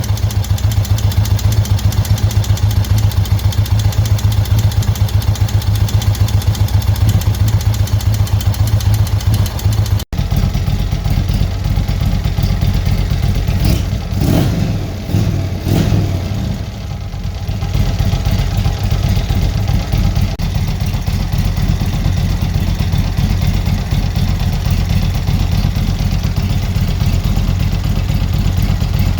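Indian Thunder Stroke V-twin motorcycle engine, big-bored to 116 cubic inches, idling with a real bad ticking from the camshaft area. The owner believes it is caused by slack in the cam chain from a stuck tensioner.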